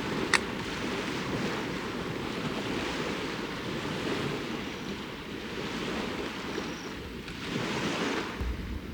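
Lake waves washing steadily onto the shore, with wind on the microphone. A brief sharp click about a third of a second in.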